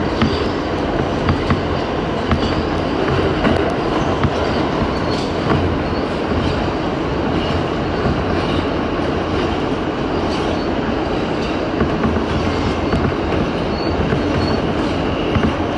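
New York City subway A express train running at speed: a steady rumble with scattered clicks of the wheels over the rails and faint high wheel squeal.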